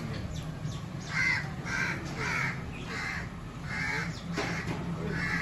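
Crow cawing repeatedly, a string of about six harsh caws spaced half a second to a second apart.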